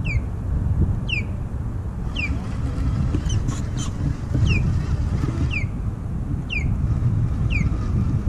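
Wind rumbling on the microphone, with a bird repeating a short falling whistled call about once a second.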